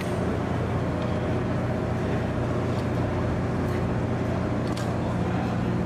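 Steady low machinery drone of a ship underway, with a few faint metallic clinks about three, four and five seconds in as an outboard motor is handled onto a rubber boat.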